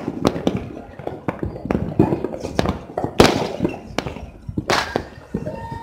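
Firecrackers and fireworks going off in a dense, irregular string of bangs, with two louder blasts about three and about five seconds in.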